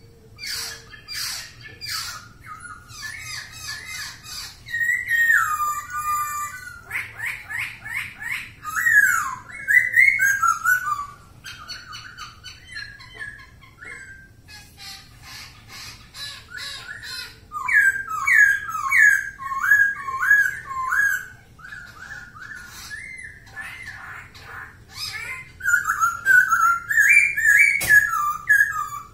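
Laughingthrush (poksay) singing: loud, varied whistled phrases that slide up and down, mixed with fast chattering notes. The song comes in bursts with short, quieter pauses between them.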